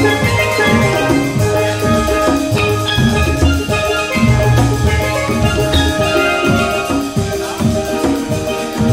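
Instrumental music with drums and a bass line stepping through short rhythmic notes, under sustained higher melodic notes.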